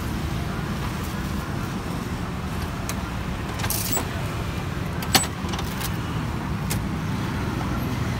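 Manual cup sealing machine being worked over a steady low traffic rumble: a short plastic rustle about four seconds in, then one sharp clack just after five seconds as the sealer closes on the cup.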